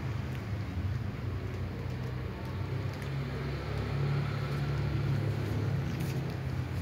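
A steady low motor hum, with a few faint clicks near the end.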